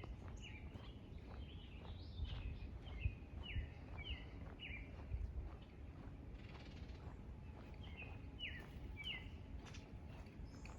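Songbird giving a string of short, sharp chirps, about two a second in runs, over a low steady background rumble.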